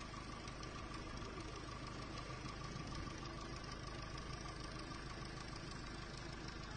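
An engine idling steadily, with a constant low rumble and a thin steady tone above it.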